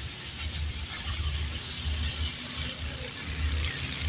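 Pakistan Railways GE U20C diesel-electric locomotive approaching from a distance at the head of an express train, heard as a faint engine hum under an uneven low rumble.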